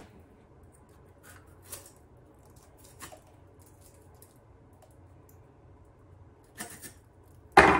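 A knife working through chopped romaine lettuce on a plate, with a few faint clicks and scrapes. A short, loud clack comes just before the end.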